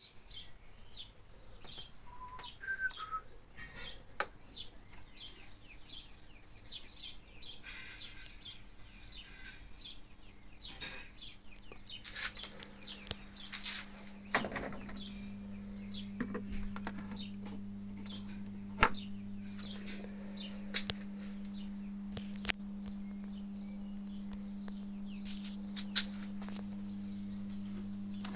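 Clicks, knocks and small squeaks from handling a vintage HMV record player's case and lid catch; about halfway through a steady low mains hum comes up, typical of the set's amplifier switched on and idling through its speaker, and holds to the end.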